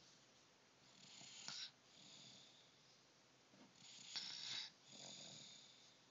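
Faint snoring: two slow breaths about three seconds apart, each a noisy in-breath followed by a softer, lower out-breath.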